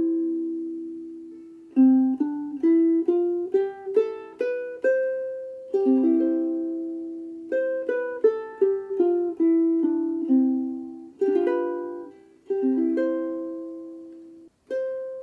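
Sumi UK-GT3M soprano ukulele, a copy of the 1920s Gibson Style 3 with a Honduras mahogany body, played unaccompanied. A slow tune mixes plucked single notes with chords, and several chords are left to ring and fade between phrases.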